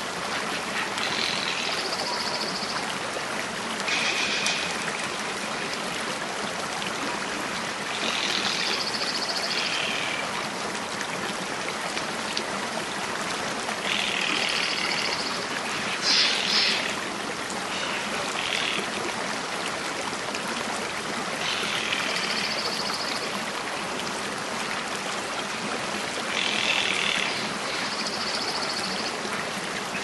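Steady rush of running water, with short, high, trilling bird calls recurring every few seconds over it.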